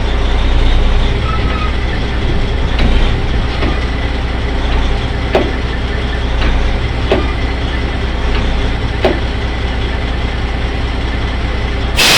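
Truck engine running steadily, with sharp clicks or knocks about once a second, and a short burst of air hiss at the very end, like an air brake releasing.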